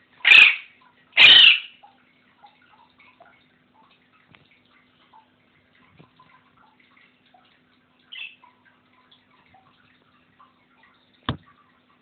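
Two loud harsh squawks about a second apart from a pet parrot, then faint scattered chirps from small cage birds, one more call about eight seconds in, and a single sharp click near the end.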